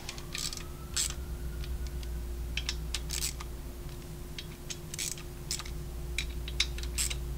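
Hand hex driver working the bolts of an S&S cam plate on a Harley-Davidson Milwaukee-Eight engine, the bolts only run in loosely: scattered light metal clicks and ticks over a steady hum.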